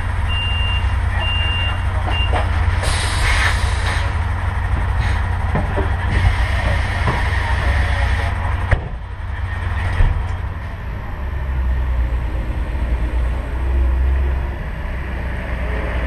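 Heavy truck engine running with a steady rumble while its reversing beeper sounds a regular series of beeps for the first couple of seconds. Two stretches of hissing over the engine follow, one short and one a few seconds long, then the engine carries on alone.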